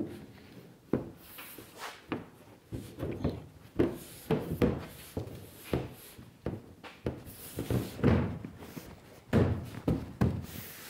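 Fiberglass trunk lid being fitted into the rear opening of a fiberglass 1934 Ford coupe body: irregular knocks and thuds as the panel is shifted and pressed against the body, a few louder ones through the middle and near the end.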